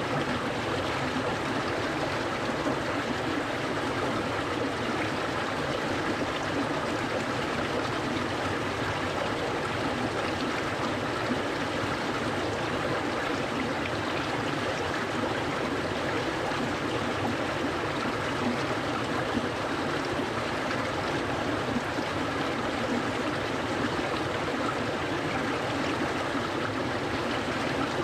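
A clear, cold mountain stream flowing steadily over stones, a continuous rushing and burbling of water.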